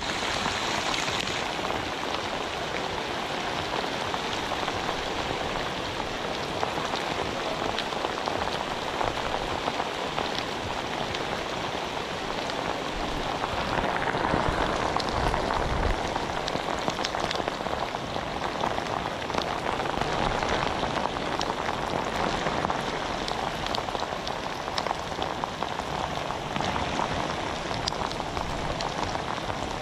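Rain falling steadily on a river's surface, an even pattering hiss. About halfway through it grows briefly louder, with a low rumble.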